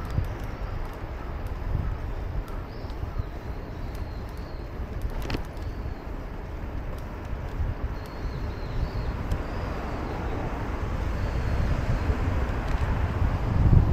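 City street ambience: a steady wash of traffic with a low, gusty rumble that grows louder near the end, a single sharp click about five seconds in, and faint high chirps.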